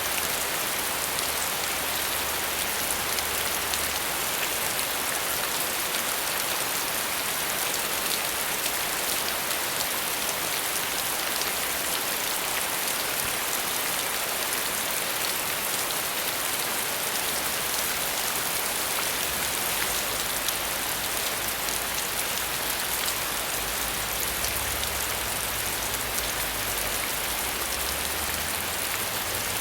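Steady rain falling, a dense even patter of many drops. A faint low hum lies underneath at the start and returns about two-thirds of the way in.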